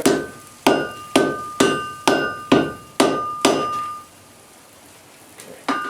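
Hand hammer striking hot steel on an anvil, about eight blows at roughly two a second with a metallic ring after each. The blows stop about three and a half seconds in, and one more comes near the end. The hammering is closing up a fold in the steel.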